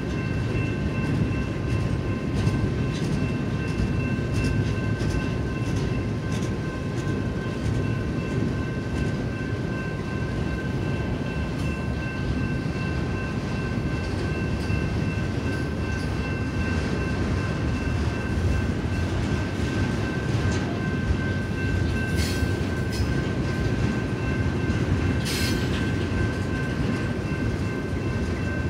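Double-stack intermodal container cars rolling past on the rail, with a continuous low rumble of wheels and a steady high-pitched whine over it. Scattered clicks come from the wheels, and two short harsh bursts are heard near the end.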